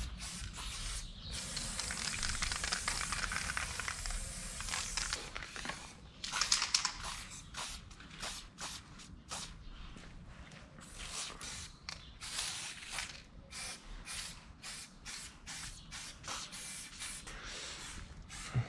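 Aerosol spray paint can hissing as paint is sprayed: a few seconds of long, steady spraying, then a run of many short bursts.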